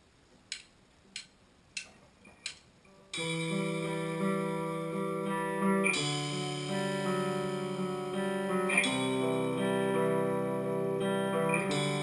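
Four evenly spaced clicks of a drumstick count-in, then guitar chords come in about three seconds in, each held and changing to a new chord roughly every three seconds.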